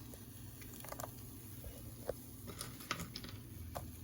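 A few light, separate clicks and taps as pieces of fried bacon are dropped onto an omelet cooking in a frying pan, over a faint steady low hum.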